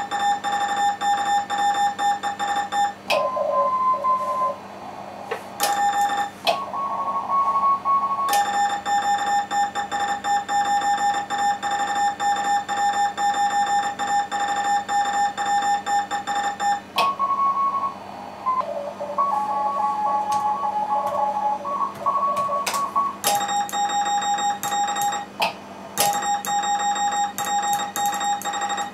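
Morse code (CW) keyed at contest speed on an amateur radio transceiver: the station's own sending heard as a rapid on-off tone at one steady pitch. It gives way about 3 s in, about 6 s in, and for several seconds in the middle to weaker replies from other stations through the receiver, at slightly different pitches over band noise.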